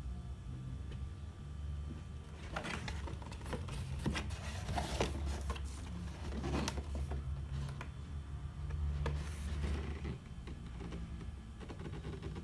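Typing on a CK108 mechanical keyboard with clicky Outemu Blue switches: a fast, irregular run of sharp key clicks starting about two seconds in and stopping near the end, over a steady low hum.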